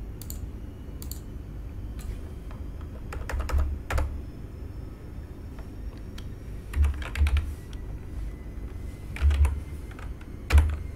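Typing on a computer keyboard: keystrokes in irregular clusters with short pauses as a line of code is entered. A low steady hum runs underneath.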